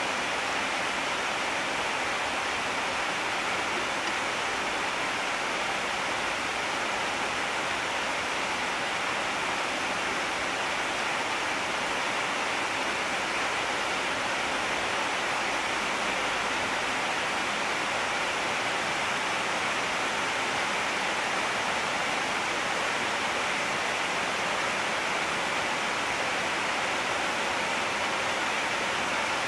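A steady, even hiss with no change in level and nothing standing out over it.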